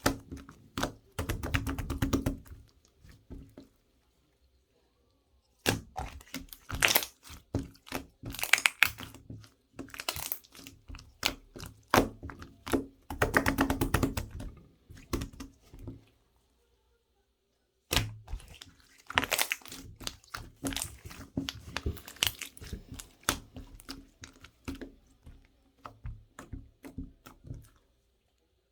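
Irregular runs of knocks, clicks and crackles, in bursts a few seconds long separated by short quiet pauses.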